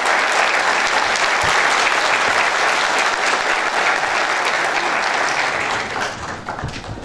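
Audience applauding steadily, dying down about six seconds in.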